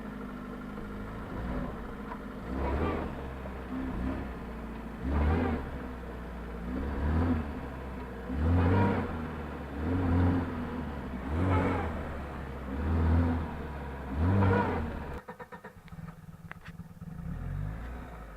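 A Lada Niva's engine revved in repeated surges, about one every second and a half, as the stuck car tries to climb out of the mud while its wheel spins on a log with no grip. The revving stops suddenly near the end, leaving a quieter low engine sound.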